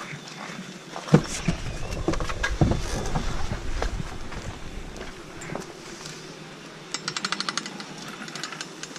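Skis sliding over snow: a rushing hiss with low rumbling and several knocks as the skis chatter over the snow, loudest in the first few seconds. About seven seconds in comes a quick string of a dozen or so sharp clicks.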